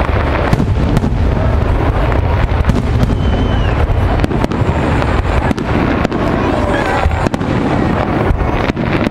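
Aerial firework shells bursting in a rapid, unbroken barrage: many sharp bangs and crackles over a heavy low rumble.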